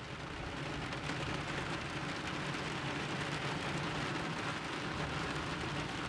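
Steady rain with a low rumble underneath, rising a little over the first second and then holding steady.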